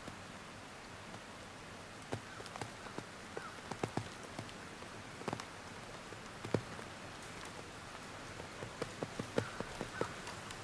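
Footsteps crunching through snow on the forest floor, with small twigs snapping underfoot: irregular clusters of crunches and clicks beginning about two seconds in, over a steady hiss.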